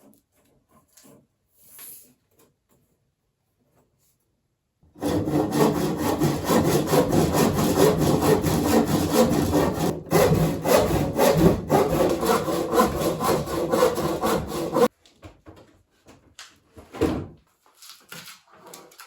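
A saw cutting through a wooden table leg, shortening it: about ten seconds of continuous rasping from some five seconds in, stopping abruptly, followed by a few light knocks of wood.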